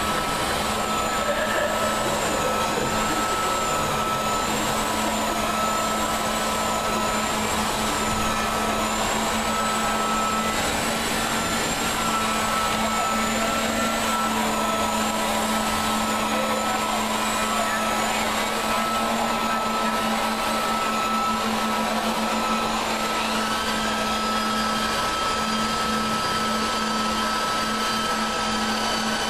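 Steady mechanical drone with a constant low hum and a faint high whine that wavers up and down, unchanging in level.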